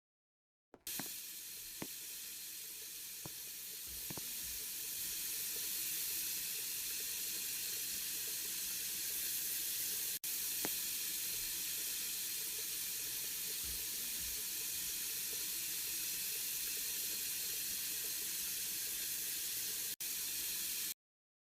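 Water rushing steadily into a Beko washing machine, a continuous hiss of flowing water. It starts about a second in and cuts off abruptly near the end.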